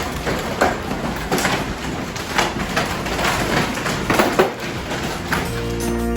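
Footsteps crunching about once a second over a steady rushing noise. Music with steady notes comes in near the end.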